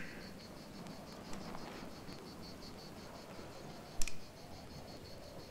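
Insects chirping in a steady, rapid, even pulse, with one sharp click about four seconds in.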